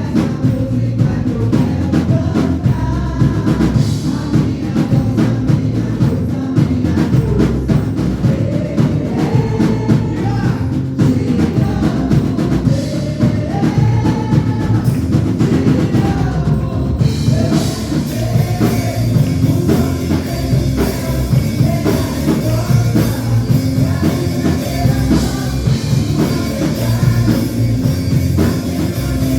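Drum kit played along to a recorded gospel song with a sung lead vocal. A little past halfway the cymbals come in and the sound fills out and brightens.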